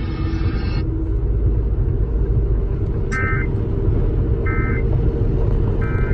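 Steady road rumble inside a moving car's cabin, with three short Emergency Alert System end-of-message data bursts from the car radio, each a brief electronic squawk, a little over a second apart, starting about three seconds in. The bursts mark the end of the EAS test message.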